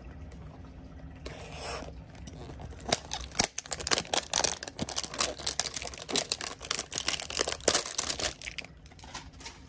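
Clear plastic wrap being torn and peeled off a trading-card hanger box: a short rustle about a second in, then several seconds of dense crinkling and crackling that stops near the end.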